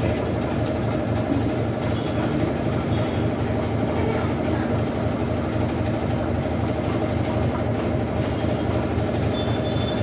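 Whirlpool top-loading washing machine running with its lid open, its motor and turning tub making a steady low hum and rumble.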